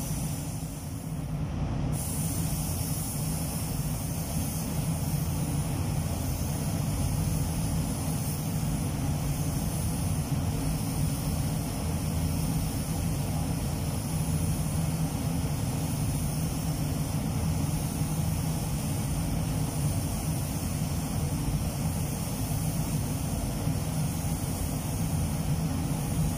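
Compressed-air spray gun hissing steadily as it lays clear coat on a car panel, over a steady low hum. The hiss is absent for the first couple of seconds, then comes in and holds.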